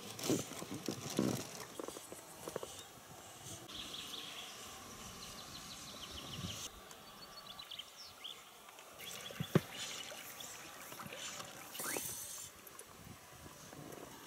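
Quiet outdoor river ambience heard from a small inflatable boat, with a few sharp knocks, the sharpest about two-thirds of the way through, and runs of short high chirps.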